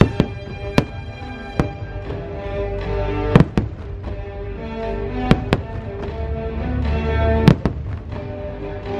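Aerial firework shells bursting with sharp bangs at irregular intervals, about eight of them, some in quick pairs, over the show's accompanying music with sustained notes.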